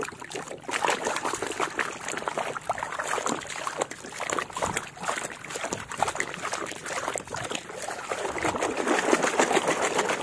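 Muddy water splashing and sloshing in a metal basin as a plastic toy truck is scrubbed and swished through it by hand. The splashing is constant and irregular, growing a little louder near the end.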